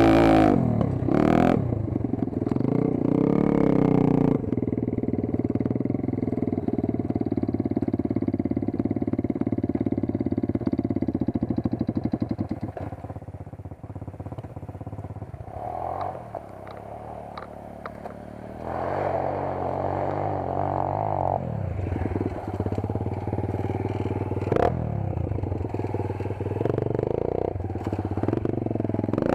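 Dirt bike engine revving up and down as the bike is ridden, its pitch rising and falling with the throttle; it eases off and runs quieter for a few seconds midway, then picks up again.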